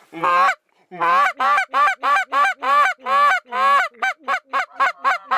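DUX goose call blown by a hunter, imitating Canada goose honks. One honk, a short pause, then a run of long breaking honks that speeds up into quick, short clucks near the end.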